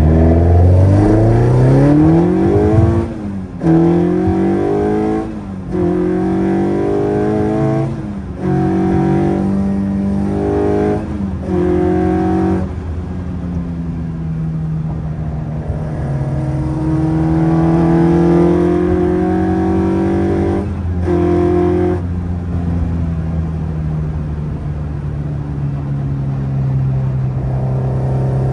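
Opel Kadett C with a swapped-in C20XE 2.0-litre 16-valve four-cylinder engine, heard from inside the cabin, revving hard and rising in pitch, with several quick gear changes in the first dozen seconds. It then runs at steadier cruising revs, with one more lift and gear change about 21 seconds in.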